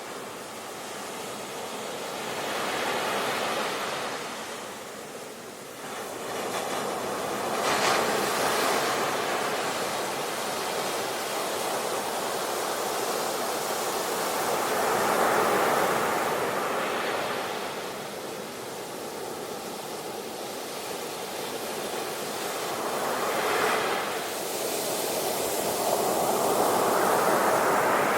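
Ocean waves breaking and washing on the shore, a continuous surf rush that swells and recedes every few seconds.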